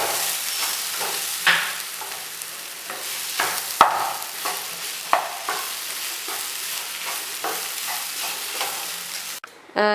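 Vegetable cutlet filling of mashed potato and vegetables sizzling in a frying pan while a spatula stirs and scrapes through it, with scattered knocks of the spatula against the pan. The sizzling cuts off suddenly just before the end.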